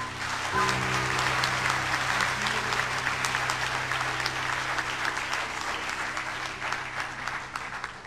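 Instrumental background music with sustained notes. Over it runs a louder, dense hiss of many fast little clicks that starts abruptly and stops after about eight seconds.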